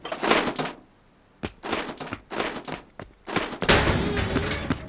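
A string of short metallic clanks as a spanner works on the engine, then about three and a half seconds in the old pickup truck's engine starts and keeps running.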